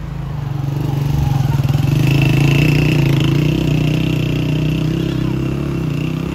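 Motorcycle engine running close by, getting louder over the first two seconds and then slowly easing off.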